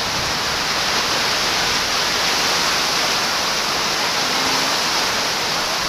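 Heavy rain pouring down in a strong wind, a steady, dense hiss.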